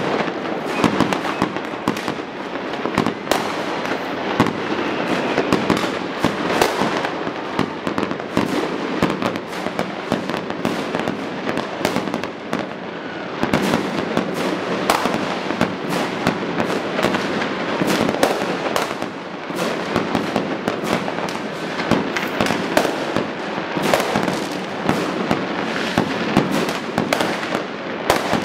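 Many fireworks going off at once: a dense, unbroken crackle of bangs and pops, one on top of another, with no pause.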